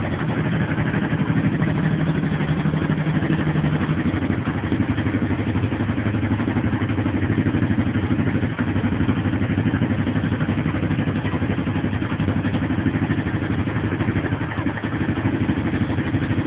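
Honda CTX trail motorcycle engine idling steadily, a fast even exhaust beat with no revving.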